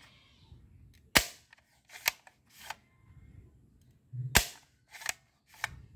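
Plastic toy gun being worked and dry-fired by hand: about six sharp, short plastic snaps at uneven intervals from its spring and pump mechanism.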